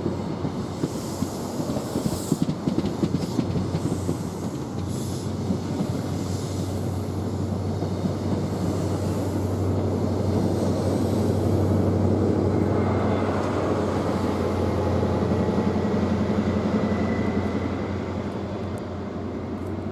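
High Speed Train's Mk3 coaches rolling past as the train pulls away, wheels clicking over the rail joints. From about halfway the rear Class 43 power car's MTU diesel engine comes past under power, louder, with a high whine, then eases as it moves off.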